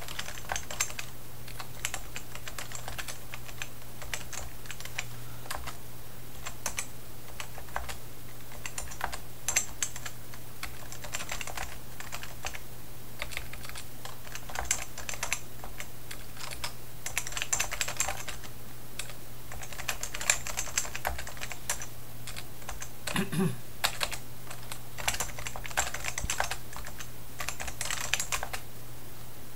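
Typing on a Key Tronic Ergoforce KT2001 rubber-dome keyboard: rapid key presses in bursts with short pauses between, over a low steady hum.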